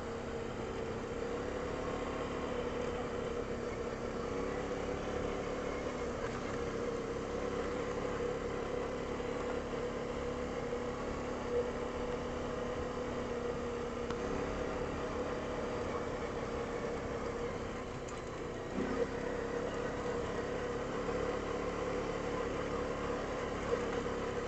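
Single-cylinder Honda ATV engine running steadily while riding along a gravel road, its note shifting slightly a couple of times, with a few small knocks.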